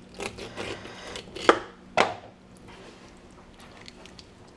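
Knife work on freshly caught bluegills being gutted and cleaned on a cutting board: a few light taps, then two sharp knocks about half a second apart.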